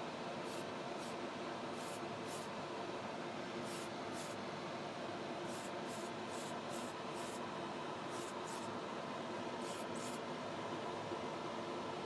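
Short hisses of spray paint being shot onto a model car body, about sixteen quick bursts, often in pairs, over a steady hum.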